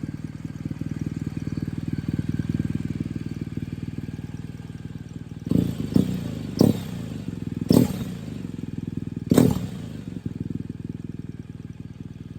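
Liquid-cooled BMW R1200GS boxer twin idling through an Akrapovic slip-on silencer, warm, not a cold start. In the second half the throttle is blipped about five times, each rev rising quickly and falling back to idle.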